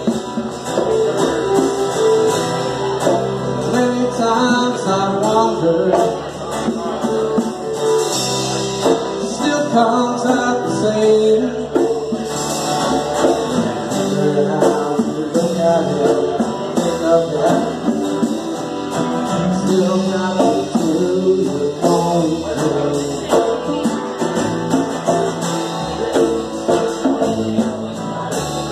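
Live band music: two electric guitars, bass guitar and drums playing together through a PA, steady throughout.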